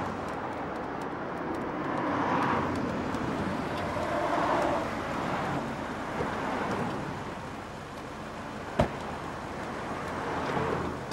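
Road traffic and a car engine running, with two gentle swells as vehicles go by in the first five seconds. A single sharp click comes about nine seconds in.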